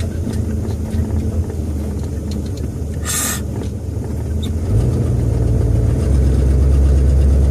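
1966 Ford Thunderbird's V8 engine running, heard from inside the cabin as a steady low hum that gets louder and heavier about five seconds in. A brief hiss cuts across it about three seconds in.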